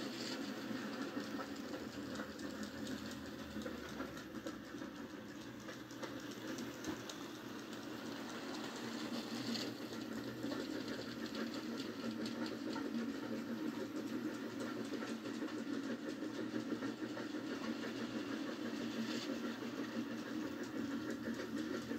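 Model railway trains, steam-outline locomotives hauling hopper wagons, running around the track: a steady mechanical whir with rapid fine clicking of the wheels on the rails.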